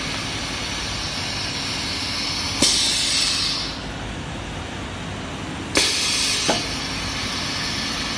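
Die-cutting press working on a sheet of foam material: a steady machine hum, and twice a sudden click followed by a loud hiss lasting about a second, about three seconds apart.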